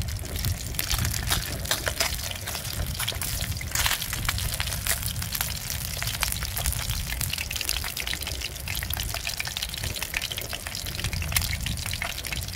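Fish tail frying in hot oil in a pan, a steady dense sizzle with fine crackling over a low rumble.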